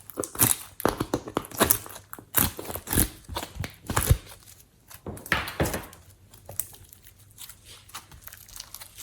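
Hands squishing and stretching glossy slime mixed with clay and glitter, making irregular sticky pops and crackles. They come several a second in the first half and thin out later.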